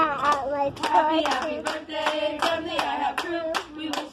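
A small group of restaurant staff singing a birthday song together, clapping along in a steady beat of about three to four claps a second.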